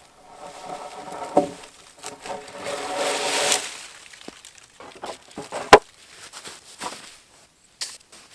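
Rough-cut pine boards being handled on a lumber pile: two stretches of wood scraping with a whining squeal, the second cutting off abruptly, then a single sharp knock of wood about six seconds in.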